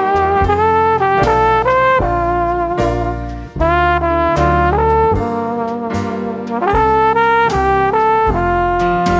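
Outro music: a melody of held notes over a beat, the notes changing every half second or so.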